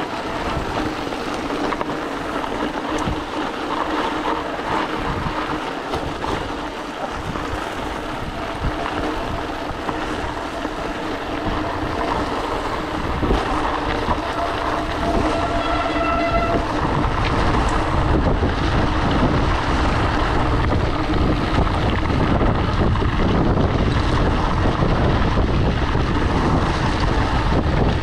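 Mountain bike rolling over a rough gravel road: tyres crunching on the gravel and the bike and its load rattling steadily, with wind rumbling on the microphone growing stronger in the second half. A brief high pitched tone sounds for a couple of seconds a little past the middle.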